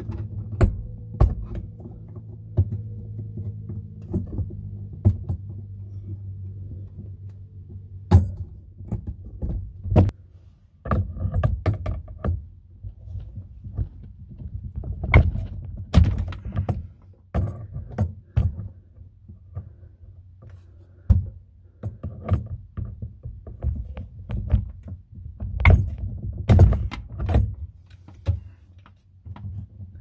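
Scattered metal clicks, clanks and rattles of hand tools and PEX plumbing fittings being handled and crimped, over a steady low hum that drops away about ten seconds in.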